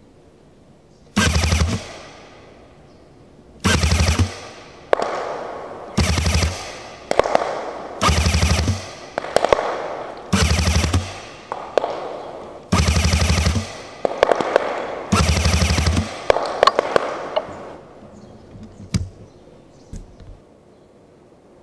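An automatic gun firing short full-auto bursts of rapid shots, seven bursts about two seconds apart, each ringing out as it fades. A few single sharp clicks follow near the end.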